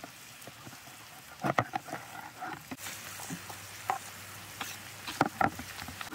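Food frying in a pan and being stirred: scattered knocks and clicks of a cooking utensil over a faint sizzle.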